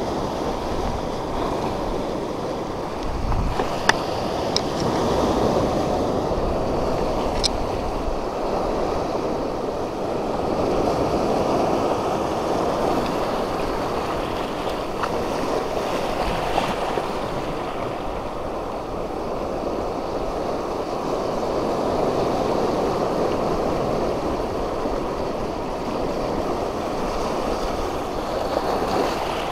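Surf breaking and washing over a shallow rock reef: a steady rush of seawater over rock. A few sharp clicks stand out about four and seven seconds in.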